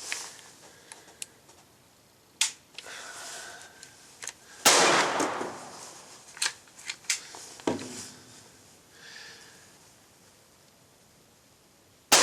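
Gunshots from a .22 LR Glock conversion pistol: one loud report with a long echo about halfway through and another at the very end. Several sharp metallic clicks in between come from the pistol being handled and cycled while it keeps malfunctioning; the next round gets only a light strike and does not fire.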